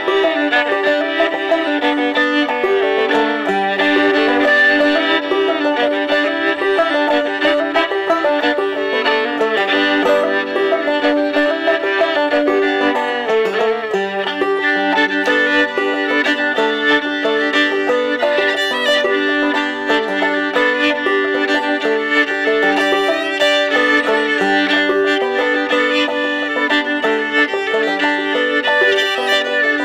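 Fiddle and fretless clawhammer banjo playing an old-time fiddle tune together: the bowed fiddle line over the banjo's quick, steady plucked notes.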